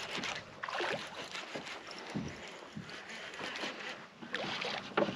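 Irregular rustling, water movement and small knocks around a fishing kayak.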